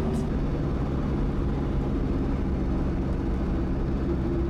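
Steady drone of a vehicle's engine and road noise while driving, with a steady higher hum joining near the end.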